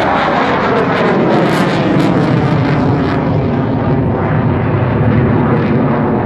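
Display aircraft's engine noise as it flies past overhead: the pitch falls during the first second, then settles into a steady, loud drone.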